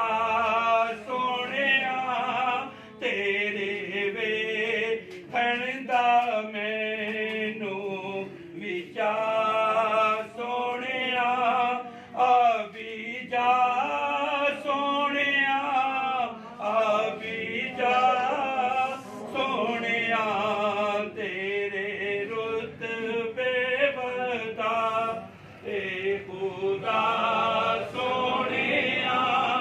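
A man singing a Punjabi Sufi devotional song unaccompanied, in long, wavering phrases with short breaks between them.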